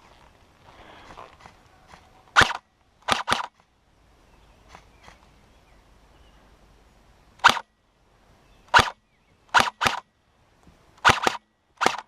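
Airsoft rifle firing single shots, about ten sharp cracks spread irregularly, several coming in quick pairs.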